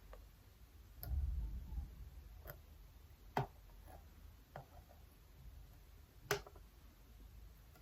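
Irregular small clicks and taps of makeup tools and containers being handled and set down on a desk, about seven in all, with a dull low thud about a second in.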